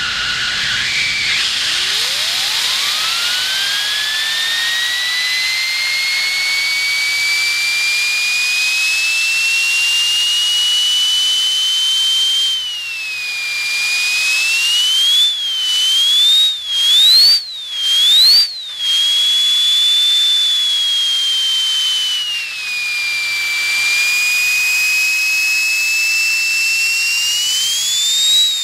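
Miniature turbocharger keychain (KCT-11BB2) spun by compressed air at about 3 psi: a loud rush of air with a whistle that rises steeply over the first few seconds as the wheel spools up. The whistle then holds high and wavers as the air flow changes. Around the middle the air is cut and reapplied several times in quick succession, so the whistle dips and climbs again like a turbo being blipped.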